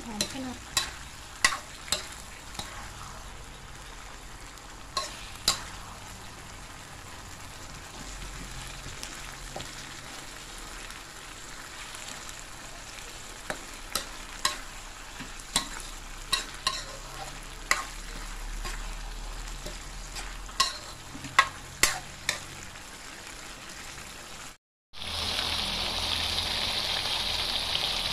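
Minced pork and tomato sauce frying in a wok, a metal spatula stirring and scraping with irregular sharp clicks against the wok over a low sizzle. After a brief cut near the end, the sizzle comes in louder and hissier.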